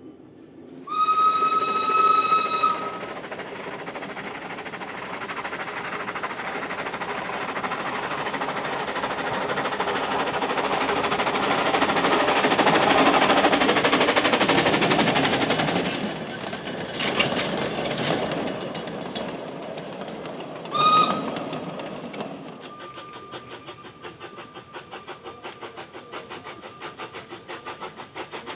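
A narrow-gauge steam locomotive's whistle sounds for about two seconds, then a double-headed steam train passes, its exhaust beat and running noise building up and falling away. A second short whistle sounds later, followed by a fast, even ticking.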